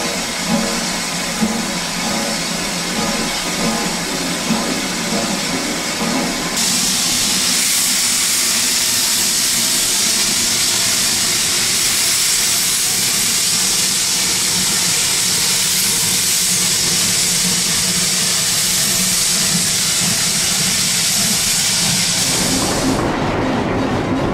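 1920 Baldwin steam locomotive venting steam: a hiss with a few sharp knocks, then a much louder, even hiss of escaping steam that starts suddenly about six seconds in and cuts off suddenly near the end.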